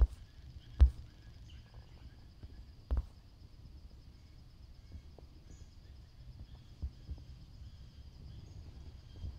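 Woodland ambience: a steady high insect trill, a few faint bird chirps and a low rumble, broken by two sharp knocks in the first three seconds and a few softer ones later.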